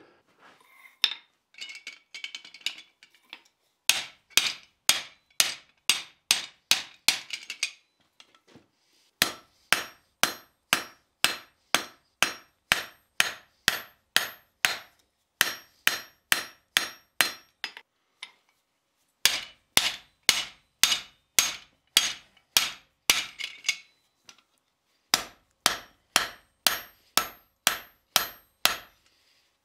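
Blacksmith's hand hammer striking a glowing hot steel bar on an anvil while forging a coat hook. It lands in runs of steady blows about two a second with short pauses between, each blow with a brief metallic ring.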